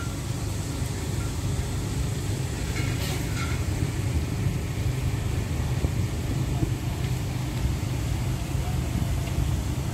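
Outdoor street ambience at a busy night market: a steady low rumble of traffic with a faint wash of crowd noise.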